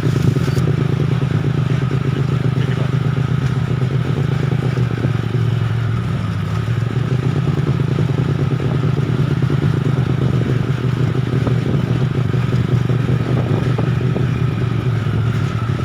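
Engine of the vehicle being ridden, running steadily at an even speed, with some clatter from the rough road.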